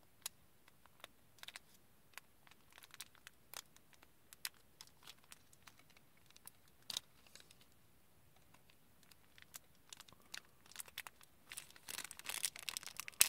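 Faint, scattered crackles and clicks of a small plastic bag being handled and pressed, growing into denser crinkling near the end as a box-cutter blade cuts the bag open to free a pullback gear unit.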